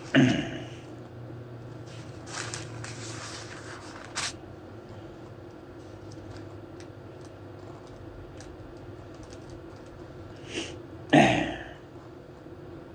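A few small clicks and a brief rustle of handling noise, with a short vocal sound at the start and a louder one about eleven seconds in.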